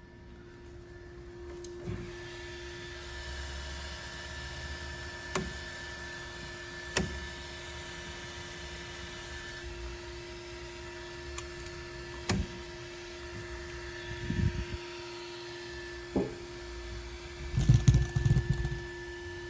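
A steady motor hum with a few separate sharp clicks, then a short burst of clattering near the end.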